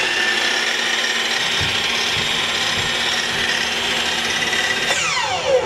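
Makita miter saw running at full speed, then released about five seconds in, its blade winding down with a falling whine.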